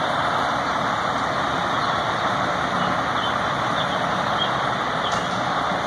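Heavy fire truck's diesel engine running, with steady road noise and no siren.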